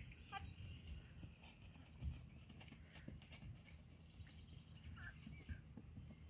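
Faint outdoor sound: a low wind rumble on the microphone, with soft, scattered thuds of a horse's hooves on grass and a faint bird chirp about five seconds in.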